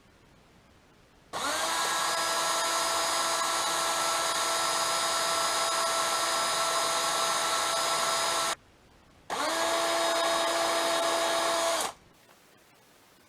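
Electric drill boring a small hole into a metal cylinder for a set screw. It runs for about seven seconds, stops briefly, then runs again for about two and a half seconds, with a quick rise in pitch each time the motor spins up.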